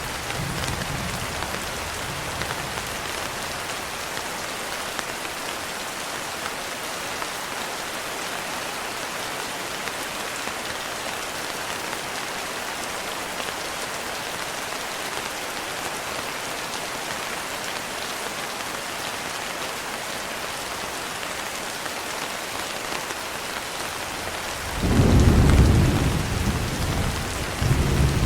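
Steady heavy rain hissing throughout. A low thunder rumble fades out in the first couple of seconds, and a loud roll of thunder breaks in near the end, swelling, easing briefly and rumbling again.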